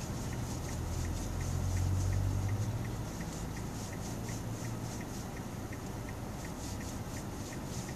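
Car cabin in stopped traffic: the engine idling low, with a steady ticking about three times a second. A deeper rumble swells about a second in and fades by three seconds, as a motorcycle alongside pulls away.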